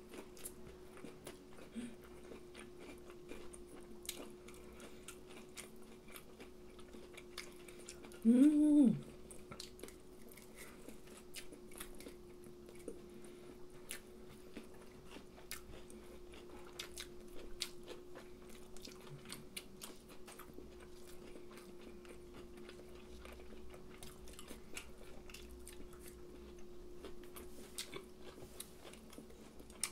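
Close-up chewing and biting of crisp breaded fried cutlet and fried chicken, with many small crunches throughout. About eight seconds in, a brief loud voiced hum rises and falls in pitch. A steady low hum runs underneath.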